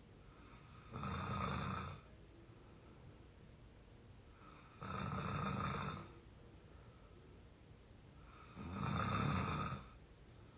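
A sleeping 22-year-old snoring: three snores about a second long each, coming roughly every four seconds, with quiet breathing between them.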